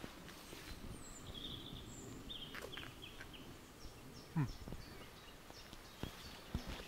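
Small birds chirping and calling, with faint footsteps of people walking on a path. About four and a half seconds in, a short low sound that drops in pitch stands out as the loudest thing.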